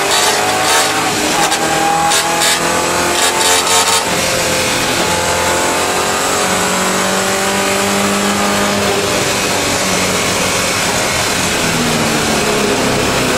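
Rover V8 engine of a Triumph TR7 race car, heard from inside the cabin while racing at speed. The pitch climbs slowly under power and drops near the end as the car comes off the throttle, with a few rattling knocks in the first four seconds.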